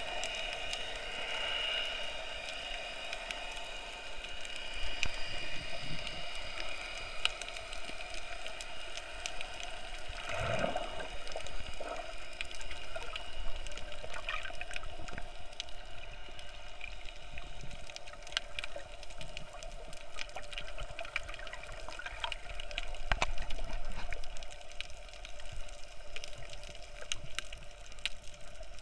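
Underwater sound picked up by an action camera while snorkeling over a reef: a steady, muffled water hiss with many scattered sharp clicks and crackles.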